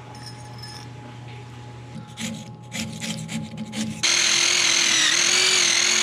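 Metal parts of a steam boiler's low-water cutoff float assembly scrape and knock as they are worked free by hand. About four seconds in, a loud steady whirring hiss with a wavering tone starts suddenly.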